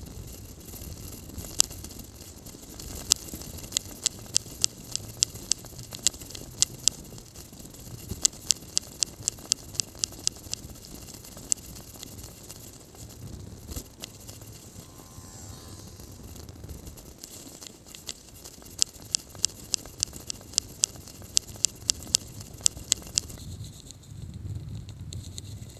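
Bicycle ride heard from a handlebar-mounted camera: a steady low rumble from the ride, with runs of sharp clicks, about three a second. The clicks stop near the end.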